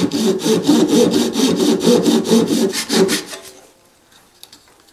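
Fine-toothed hand saw cutting a shallow groove into a wooden bench dog clamped in a vise, in quick, rhythmic short strokes. The sawing stops about three seconds in.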